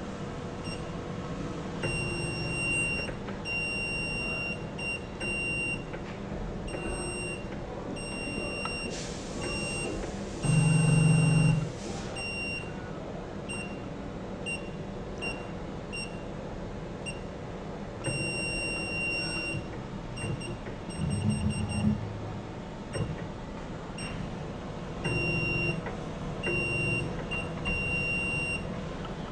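Electronic beeper of a benchtop robot and its touchscreen controller, sounding short and longer beeps at one steady high pitch on and off throughout, over a faint steady hum. A dull low thump, the loudest sound, comes about eleven seconds in, and a smaller one just past twenty seconds.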